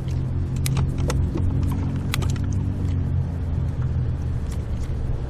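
Boat motor running with a steady low hum, with several sharp clicks in the first two seconds.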